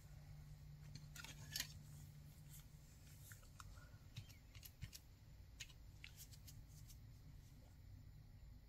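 Near silence with a few faint clicks and taps from small metal business-card tins being handled and set down, over a faint low hum.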